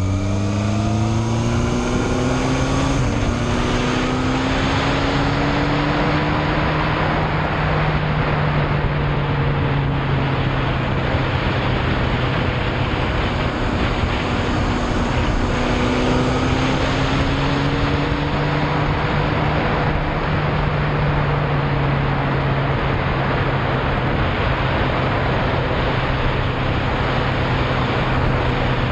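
Yamaha Fazer motorcycle engine pulling up through the revs, shifting up about three seconds in, then cruising at a steady speed, with the revs climbing briefly again midway. A heavy rush of wind and road noise runs under the engine throughout.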